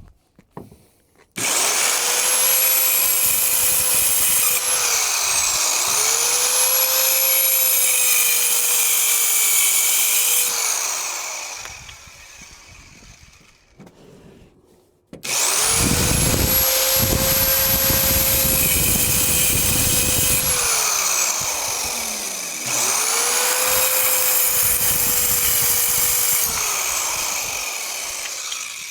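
Electric power saw cutting lumber in four runs. Each time the motor spins up to a steady whine, cuts, and winds down in a falling pitch, with a longer pause about halfway through.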